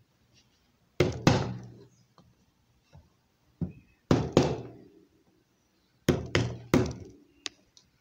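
Blows struck on a wooden block held against a bicycle rear hub, knocking the dust cap into place: about nine sharp knocks in groups of two or three, several followed by a brief metallic ring.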